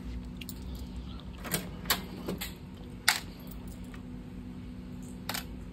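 A handful of separate sharp clicks and taps, the loudest a little after three seconds in, over a steady low hum.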